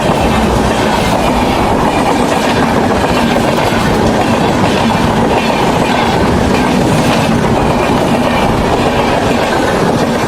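A train running along the track: a steady, loud rumble with the clatter of its wheels over the rails.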